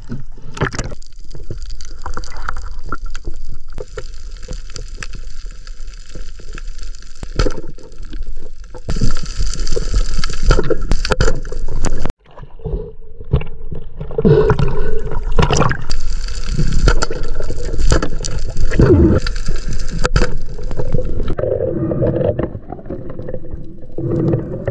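Water gurgling and sloshing around an underwater camera, with many short knocks and clicks. The sound cuts out suddenly about halfway through, then the same underwater noise resumes.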